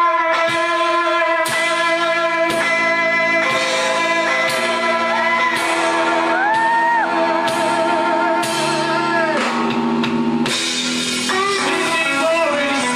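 Live blues band playing: electric guitar and drum kit, with a singer's voice sliding over the band.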